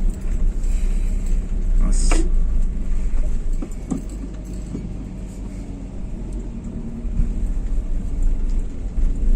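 Steady low rumble of road and engine noise inside the cabin of a moving Daihatsu Xenia 1300. A sharp rattle comes about two seconds in, with a couple of lighter knocks near four seconds.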